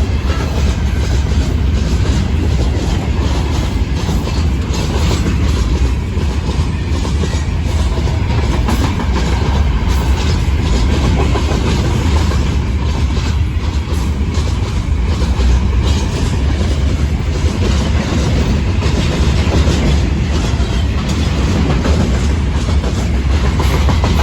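Freight train of gondola wagons rolling past close by, wheels clattering steadily over the rail joints above a deep, continuous rumble.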